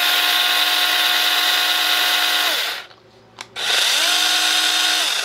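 OLMLMO 8-inch cordless mini electric chainsaw running with no load, its chain whining at full speed and winding down about two and a half seconds in. A second short run spins up a little past three and a half seconds and cuts off near the end, the built-in oiler lubricating the chain as it runs.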